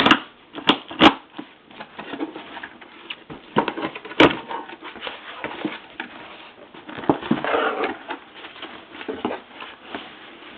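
Cardboard shipping box being opened and packing peanuts handled: sharp cracks, three in the first second and one about four seconds in, amid steady rustling and scrunching.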